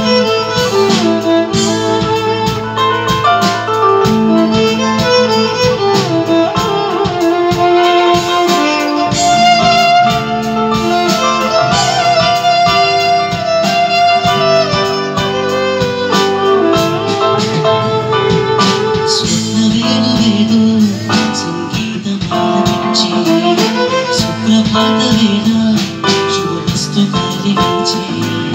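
Live band playing an instrumental piece: a violin carries the melody over guitar and a steady drum beat.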